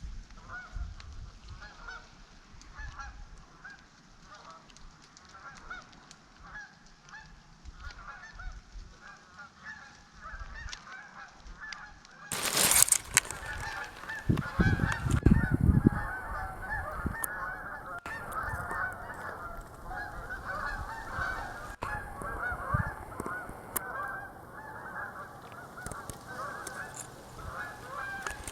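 A flock of geese honking continuously, many birds calling over one another, the calls growing louder about halfway through. A loud burst of noise comes about twelve seconds in, with low rumbles a couple of seconds after.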